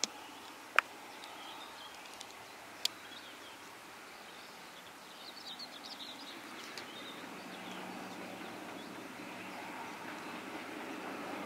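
Rural ambience with birds chirping and two sharp clicks early on. Underneath, a distant diesel locomotive's engine hums steadily and grows gradually louder from about halfway through as the train approaches.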